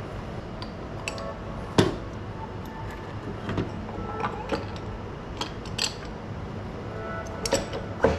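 Scattered clinks and knocks of metal parts being handled as a metal pipe elbow is fitted against a turbocharger's housing, with a sharp knock about two seconds in and another near the end. Faint background music.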